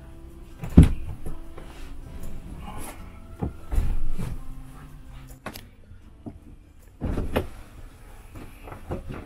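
Thumps and knocks from a fabric recliner loveseat section as it is handled on its base and then sat in. The loudest thump comes about a second in, with more around four seconds and seven seconds.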